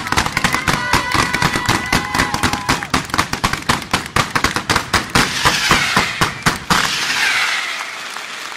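Aerial fireworks display going off in rapid volleys of sharp bangs, with high whistling tones over the first couple of seconds. The bangs stop about seven seconds in, leaving a hissing crackle as the display thins out.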